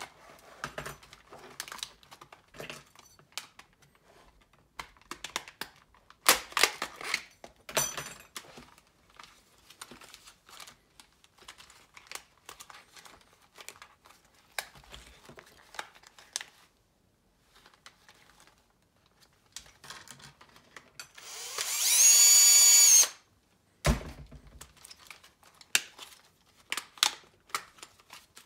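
Scattered clicks and rustles as plastic parts and plush fur of a toy are handled. About three quarters of the way through, a Bosch 18V cordless drill/driver runs once for about a second and a half, spinning up to a steady whine and then stopping, followed by a single thump.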